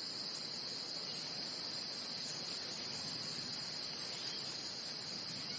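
Steady, high-pitched insect chirring, like a bed of crickets, that does not change.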